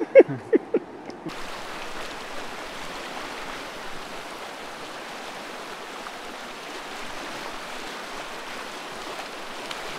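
Whitewater river rapids rushing steadily, starting abruptly about a second in.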